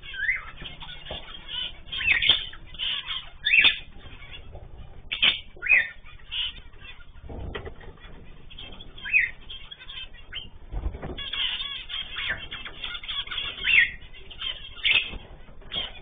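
Zebra finches calling: short high chirps, singly and in quick runs, scattered throughout, with a couple of dull low thumps about seven and eleven seconds in.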